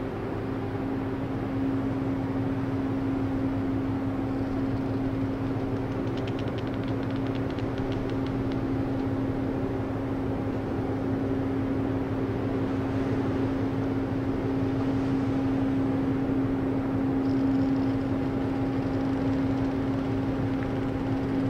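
Ship engines running steadily, heard as an even drone with one constant humming pitch, from a large container ship and the harbour tugs working it.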